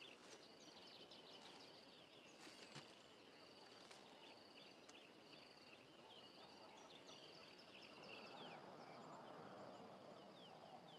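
Faint bush ambience: many small bird chirps and quick falling whistles over a soft hiss.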